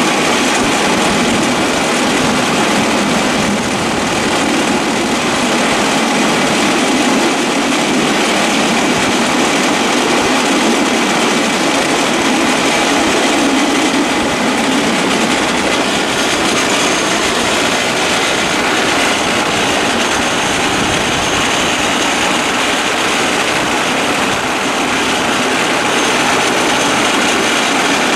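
Homemade rail draisine rolling along the track, its steel wheels running on the rails with a steady, loud noise.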